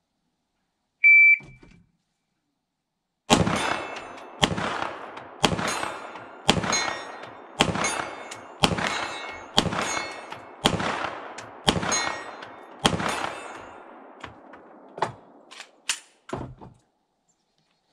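A shot timer's short start beep, then ten 9mm shots from a Canik SFx Rival pistol fired at a steady pace of about one a second, each trailing off in an echo: a timed ten-shot string. A few lighter clicks follow near the end.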